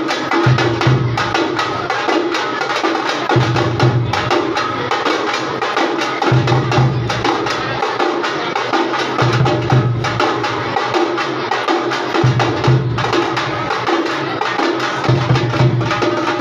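Live folk drumming: a large drum beaten with a stick and other drums playing a fast, steady rhythm of sharp, clacking strokes over a recurring deep booming beat.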